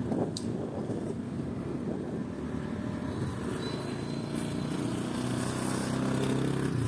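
Wind rushing over the microphone and road noise from a moving motorbike, with a low steady hum that grows a little louder over the last two seconds.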